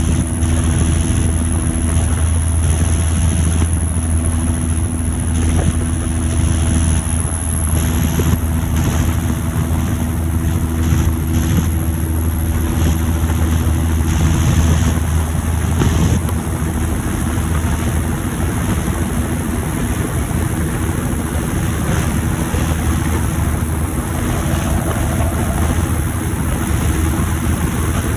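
John Deere 7530 Premium tractor's six-cylinder turbo diesel running steadily under way on the road, with a thin high turbo whistle over the engine sound. The deep engine hum eases a little about halfway through.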